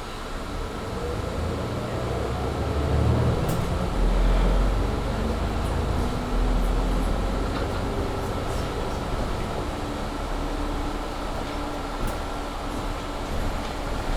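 Mercedes-Benz Citaro C2 G articulated bus accelerating at full throttle (kickdown), heard from inside. The engine note climbs and jumps as the Voith automatic gearbox shifts up, about four and six seconds in. A steady whine from the loud cabin heater runs underneath.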